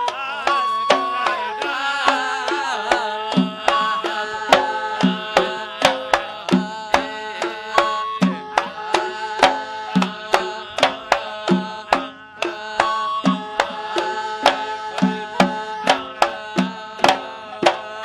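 Live wedding band music: an instrumental melody over a steady rhythm of hand-drum strokes, with no singing heard.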